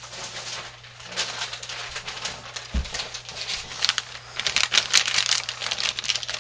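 Plastic bag rustling and crinkling as it is handled and opened, getting louder about halfway through, with a dull thump about three seconds in.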